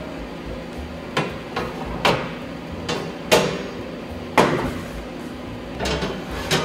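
Metal muffin pans knocking and scraping against the oven's rack rails as they are slid out of a hot convection oven with mitted hands. The knocks are irregular, about seven in all, and the loudest two come a little after three and a little after four seconds.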